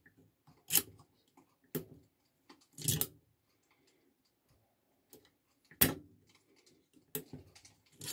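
AR-15 rear takedown pin being worked in and out of the lower receiver against its detent: a few separate metallic clicks with short scrapes, one longer scrape about three seconds in. The action sounds rough and dry, wanting oil.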